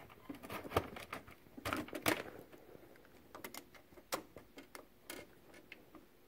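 Irregular light clicks, taps and short scrapes of hand handling at an LCD TV panel's source board and flex cables.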